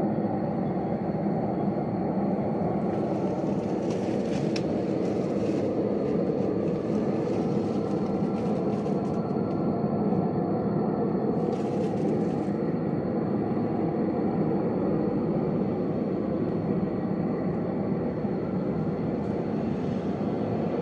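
Steady droning rumble heard from the sky, with a faint wavering tone above it. It is the mysterious sky noise popularly called "trumpets in the sky", which a physicist put down to a skyquake: air-compression disturbances travelling through the atmosphere.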